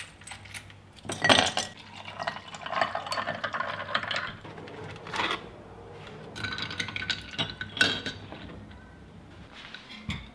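Dishes and a glass clinking on a kitchen counter as orange juice is poured into a glass, then a pastry is set on a plate, with a few sharp clinks.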